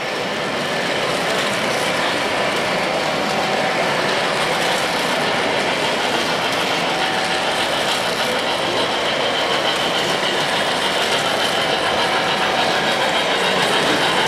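O-gauge three-rail model trains running: a steady rumble of wheels on the track with fine clicking, slowly getting louder as a train comes closer.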